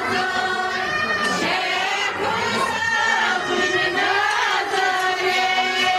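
Kashmiri women singing wanvun, a traditional devotional folk song, several voices together on long held notes.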